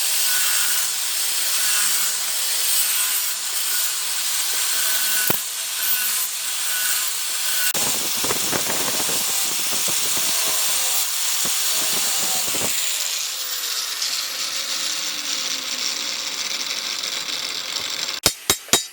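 Workshop power tool cutting with a steady hiss, turning rough for a few seconds in the middle, then a falling whine as it spins down. Several sharp hammer blows start near the end.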